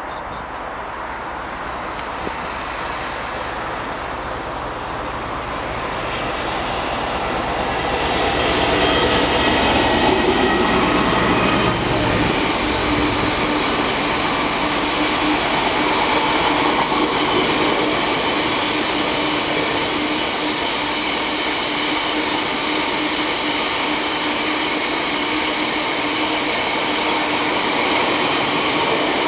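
A freight train approaching and passing close by. It grows louder over the first eight to ten seconds, its heavy low rumble falls away about twelve seconds in, and then a long rake of covered hopper wagons rolls past with a steady rolling noise and faint humming tones.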